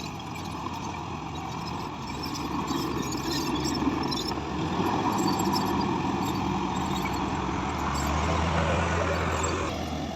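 Diesel engine of heavy construction machinery running and working, getting louder a couple of seconds in and heaviest just before the end, when it suddenly eases off. Scattered high squeaks sound over the engine.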